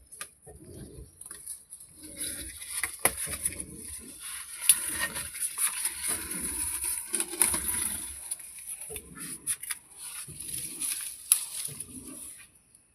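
Construction work on a house: irregular knocking and clattering, with a steady high hiss underneath.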